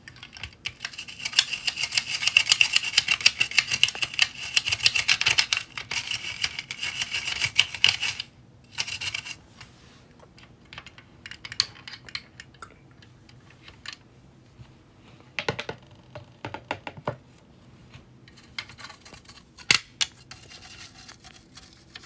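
A small brush scrubbing a toy car's plastic and metal body in rapid back-and-forth strokes for several seconds, then slower scattered scrapes and taps with a few sharp clicks near the end.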